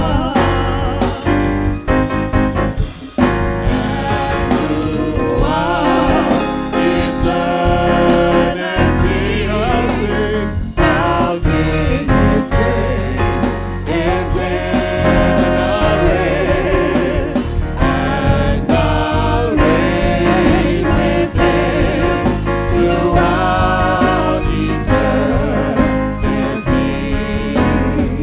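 Church worship team singing a gospel worship song over instrumental accompaniment.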